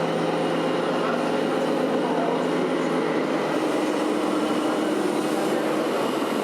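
Scale RC trucks running: a steady engine-like drone with a hum that steps up in pitch about three and a half seconds in.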